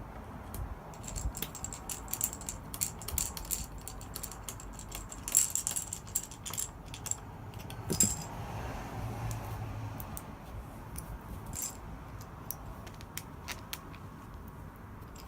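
Small metal screws and a screwdriver clinking and clicking while screws are driven into an iMac's metal frame: a run of light, irregular metallic ticks, with a sharper click about eight seconds in.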